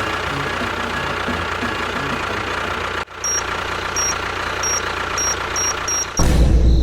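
Steady engine-like running noise, with a run of short high beeps coming closer together in the second half and a louder, deeper burst of engine sound near the end.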